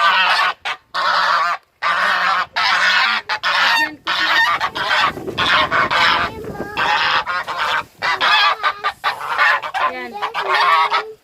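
A flock of farm poultry, chickens and turkeys, calling loudly and almost without pause, excited as feed arrives.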